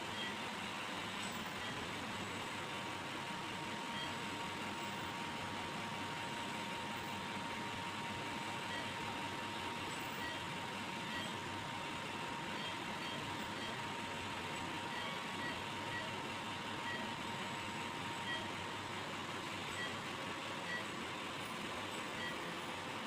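Steady hiss of neonatal ICU equipment with short faint beeps from a patient monitor now and then. A thin steady tone runs under it and stops about three-quarters of the way through.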